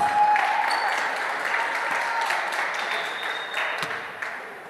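Spectators at a basketball game applauding, starting suddenly and fading over about four seconds, with a voice calling out over the first two seconds and a few sneaker squeaks and ball bounces from the court.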